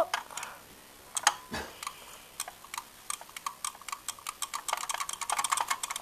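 Lift call push button being pressed over and over: a run of sharp plastic clicks, sparse at first and quickening to several a second toward the end, with a faint steady tone underneath the later clicks.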